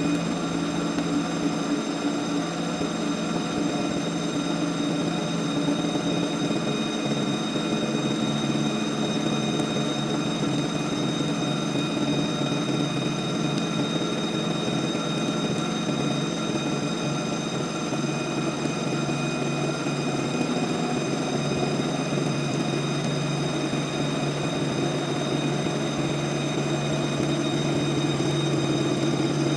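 CNC vertical milling machine running a surface-machining pass on metal: a constant mechanical hum with several steady high whine tones over it.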